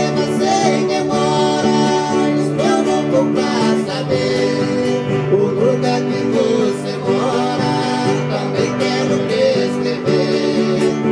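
Music with guitar, playing steadily throughout under a wavering melody line.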